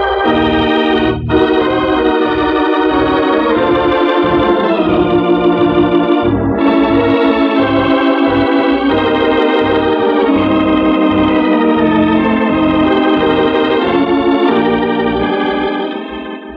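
Organ playing the closing theme of a radio drama in sustained chords, fading down near the end.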